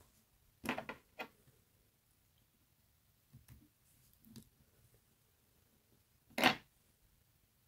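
Brief rustles and taps of fingers handling a fly held in a tying vise: a few short ones near the start, two faint ones midway, and the loudest, a quick rustle, about six and a half seconds in.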